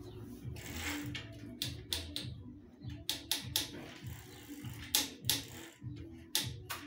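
Bicycle V-brake being worked by its lever: the pads click against the rim and the arms spring back, in quick clusters of two or three clicks about every second and a half, both arms returning evenly as a well-adjusted brake should. Background music with a steady beat runs underneath.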